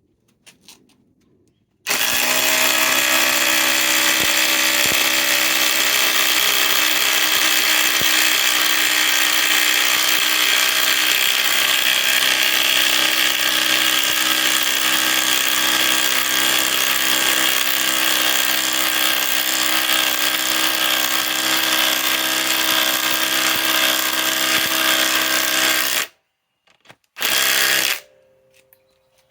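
Cordless impact driver hammering continuously for about 24 seconds as it drives a 6-inch lag screw into wood that was not pre-drilled, hard going for the tool. It stops suddenly, then gives one short final burst.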